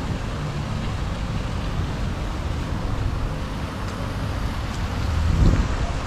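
Outdoor city-square ambience: a steady rumble of wind on the microphone and distant traffic, swelling briefly about five and a half seconds in.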